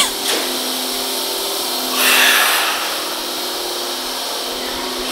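Steady machinery hum and hiss of an underground railway platform, with a commuter train standing at it, and a louder rush of hiss swelling about two seconds in.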